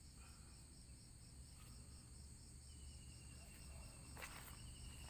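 Steady, faint chorus of insects: a continuous shrill buzz over an evenly pulsing trill. A brief faint rustle comes a little after four seconds in.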